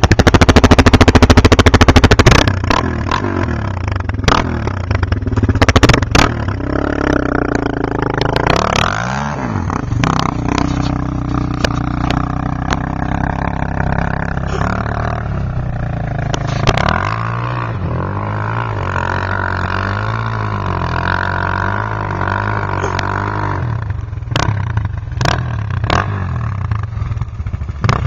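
Suzuki LT-Z400 quad's single-cylinder four-stroke engine running through a full Yoshimura exhaust, revving with its pitch rising and falling again and again as it is ridden. It is at its loudest for the first two seconds or so.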